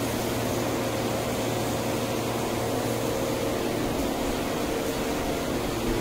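Steady rushing roar of a glassblowing shop's gas-fired glory hole burner and blower, with a constant low hum underneath.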